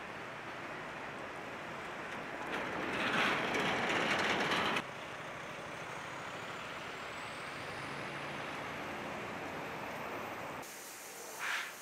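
City street traffic noise, with a loud hiss lasting about two seconds that stops abruptly. Later a faint high whine rises slowly in pitch, and the traffic noise drops suddenly near the end.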